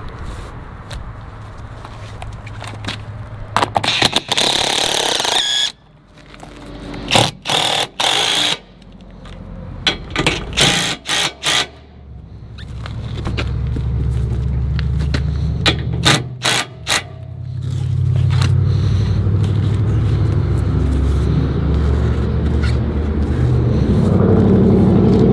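Cordless drill drilling mounting holes for a plow's rubber snow deflector, run in several short trigger bursts, then a longer, steadier low run that builds and is loudest near the end.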